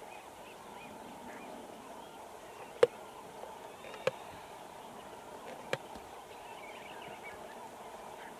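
Male lion feeding on a buffalo carcass: three sharp cracks a second or so apart near the middle, the first by far the loudest, over a steady background hiss.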